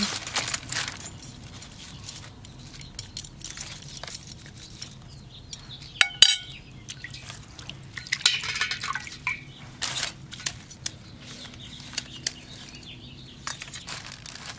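Scattered clicks and scrapes of a knife working on spiny sea urchin shells, with a sharp ringing metal clink about six seconds in. Water splashes in a stainless steel bowl a couple of seconds later as an urchin is dunked and rinsed.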